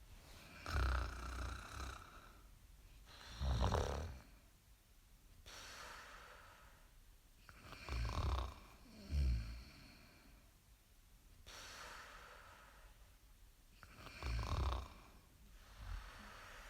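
Snoring in slow, regular breath cycles about every five to six seconds. Each cycle is a soft, airy breath followed by a loud, low, rattling snore.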